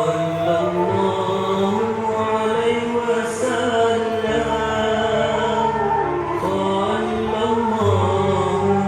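Background music of slow, chant-like singing in long held notes over a steady low drone.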